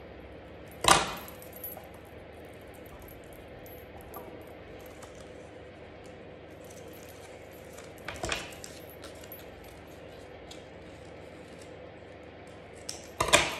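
Metal scissors clattering as they are set down on and picked up from a table: a sharp knock about a second in, a softer one near eight seconds and a quick double knock near the end, with faint snips of cardstock in between.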